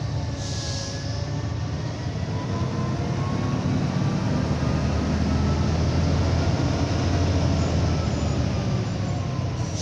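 Scania 113's straight-six diesel engine running steadily, heard inside the cab on a long downhill, held back in gear. There is a faint whine rising and falling, and a short hiss about half a second in.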